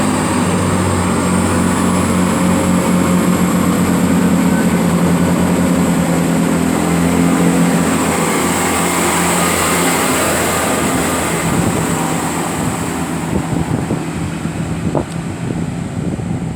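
Class 166 diesel multiple unit's engines running under power as the train pulls away. The engine note rises a little over the first several seconds, then the sound fades away in the last few seconds.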